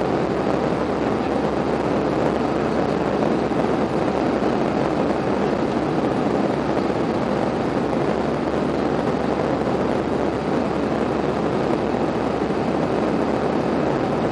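Airbus A320 cabin noise in flight: a steady, unbroken rush of engine and airflow noise heard from inside the cabin.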